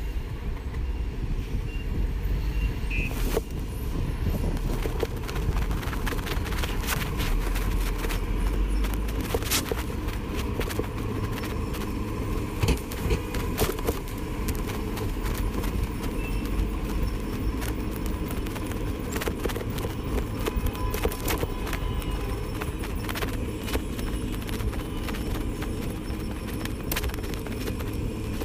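Road noise heard from a moving e-bike: a steady low rumble of tyres and passing traffic, with frequent small rattles and clicks and a faint steady whine.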